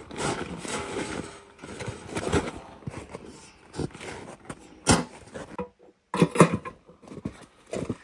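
Irregular rustling with scattered clicks and knocks, like gear being handled. The sound drops out briefly about six seconds in.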